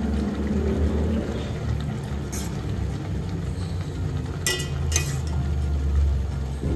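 Rice and water boiling in a steel pot on a gas stove burner: a steady low rumble. A metal spoon clinks against the steel pot three times, from about two seconds in.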